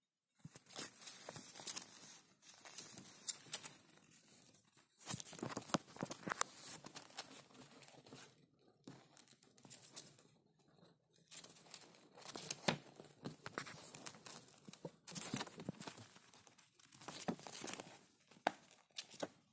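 Sheet of paper rustling and crinkling with scratchy clicks as a hamster scrabbles over it. The sound comes in irregular spells with a few short pauses.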